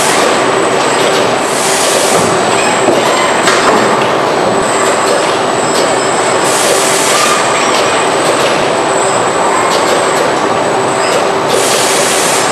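Dense mechanical noise of a robotic car-body assembly line, with a thin high whine running under it. Three short bursts of hiss come about five seconds apart.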